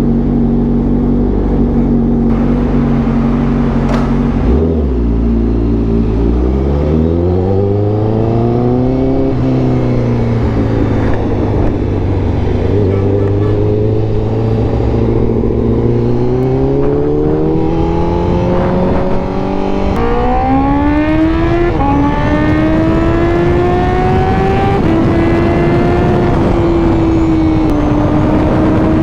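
Honda CBR1000RR-R Fireblade SP inline-four engine accelerating through the gears. After a steady low note for the first few seconds, the pitch climbs, dropping sharply at upshifts about ten seconds in, twice around twenty seconds and once near the end, then holds a steadier, higher note.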